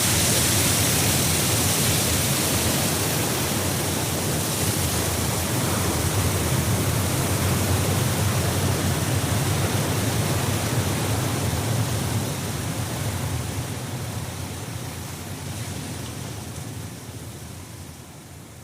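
A steady, even rushing noise without any pitch or rhythm that fades away over the last few seconds.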